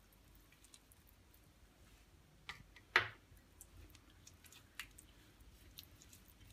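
Fingers working a wet spice paste with lemon juice around a stainless steel plate: faint squishing with scattered light clicks and scrapes against the metal, the loudest about three seconds in.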